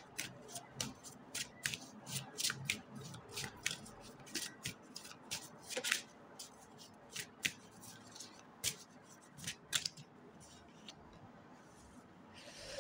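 A deck of tarot cards shuffled by hand: a run of quick, irregular, sharp card clicks, dense at first, then sparser, dying away about ten seconds in.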